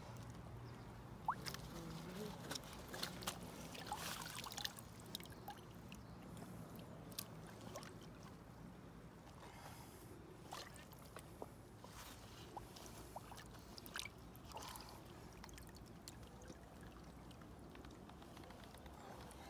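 Faint water sloshing and dripping around a wet fish sling held in the shallows as a sturgeon is released from it. Scattered small splashes and light clicks come through, most of them in the first few seconds.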